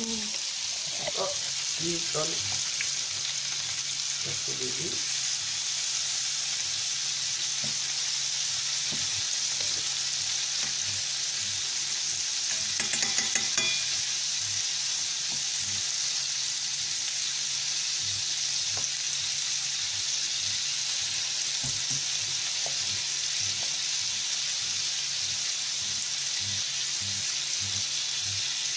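Chicken tenderloins frying in butter in a stainless steel pan, a steady sizzle throughout. A fork scrapes and taps against the pan as the pieces are turned over, with a louder clatter about thirteen seconds in.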